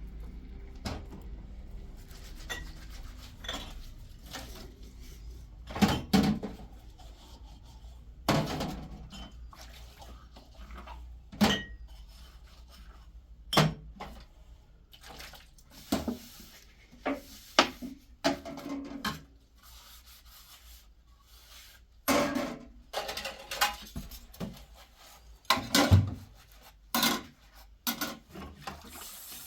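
Irregular knocks and clatter of hard objects being handled and set down, a dozen or so strokes spread unevenly, over a steady low hum.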